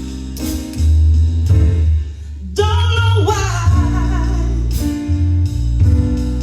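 Live band playing the slow intro of a jazz ballad: deep bass notes, regular drum hits and sustained chords. A female singer slides through a short wordless vocal run about three seconds in.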